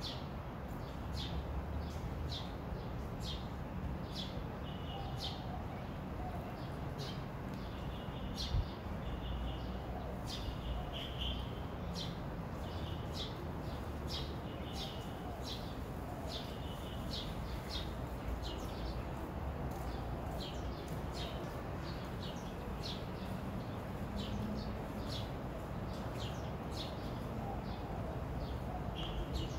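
Small birds chirping, many quick high chirps with a few short held notes, over a steady low background rumble.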